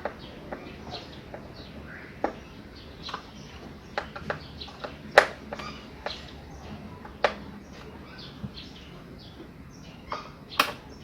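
Scattered sharp clicks and knocks, the loudest about five seconds in and another near the end, over short, repeated bird chirps.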